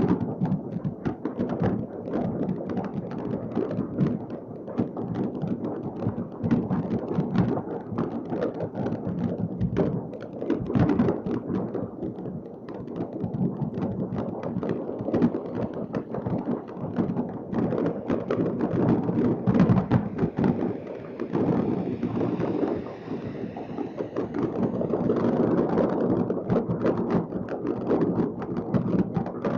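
Fireworks going off all over a city at once, heard from afar: a continuous rumble of many overlapping booms and bangs, with no break between them.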